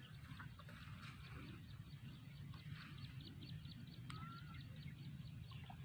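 Faint outdoor ambience with a low steady rumble. A bird gives a quick run of high ticking chirps, about five a second, and a short whistled note about four seconds in.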